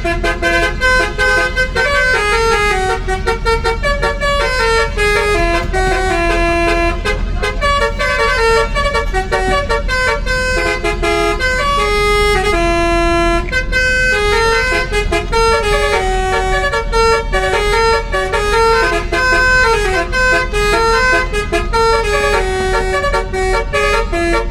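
A bus's multi-tone 'telolet' basuri horn playing a melody, held notes stepping up and down in pitch without a break, over a steady low rumble.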